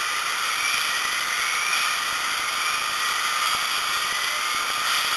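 A steady hiss with little low rumble, holding at one level.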